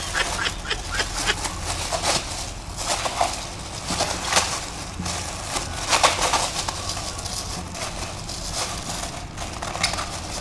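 Sugarcane stalks being smashed open: a run of irregular sharp knocks.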